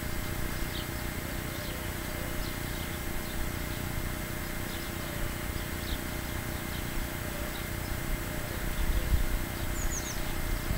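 Outdoor garden ambience: a steady hiss over a low, fluctuating rumble, with faint short high chirps scattered throughout and a quick pair of falling high chirps near the end.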